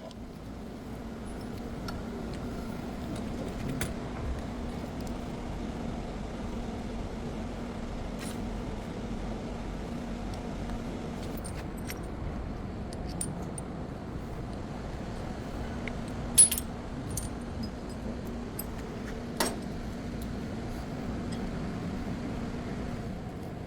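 Scattered light metallic clinks and taps over a steady low hum, with two sharper clinks about two-thirds of the way through.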